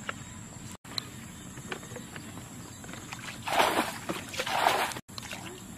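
Muddy water splashing twice, about a second apart, as a pot is scooped through a shallow ditch. The audio cuts out for an instant twice.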